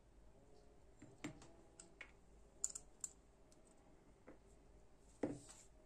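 Scattered light clicks and taps of small metal folding-knife parts being handled: the steel blade, pivot washer and metal liners touching and knocking together, with the sharpest clicks about a second in and near the end.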